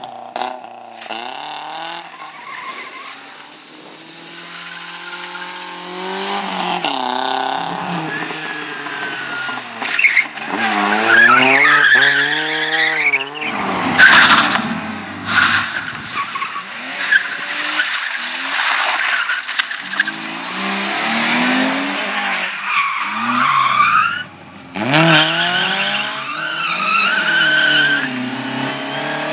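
A car being driven hard through a slalom course: its engine revs up and drops back again and again, and its tyres squeal through the turns.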